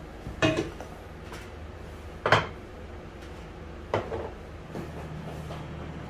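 Dishes and utensils knocking and clinking on a table during a meal: three sharp clinks about half a second, two and a quarter, and four seconds in, with a few fainter taps. A steady low hum runs underneath.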